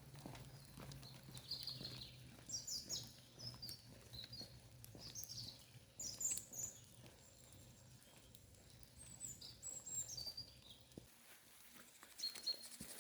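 Small birds chirping faintly, in short high calls and a few falling whistles, over a low steady hum that stops about eleven seconds in.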